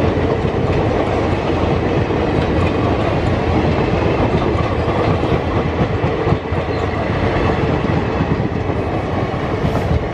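Indian Railways express passenger coaches passing close by at speed: a loud, steady rumble with the rapid clatter of wheels over the rails.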